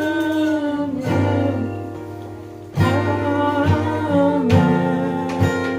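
Acoustic guitar being strummed, with a voice carrying the melody along with it but no clear words.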